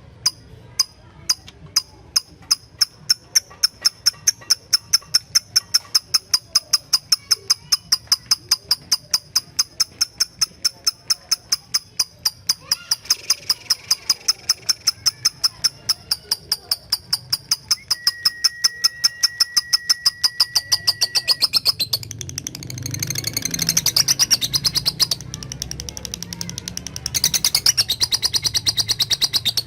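A lovebird making its rapid 'ngetik' ticking call: a long, even series of short, sharp 'tik' notes, about four a second. Near the end come two stretches of denser chattering. This call is used to challenge a rival and set other lovebirds off into the long 'ngekek' trill.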